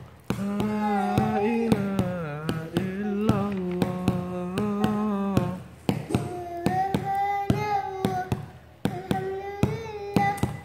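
A young boy singing a nasheed in long, wavering held notes, over a steady percussive beat of about three or four strokes a second; a lower sustained tone sounds under the voice during the first half.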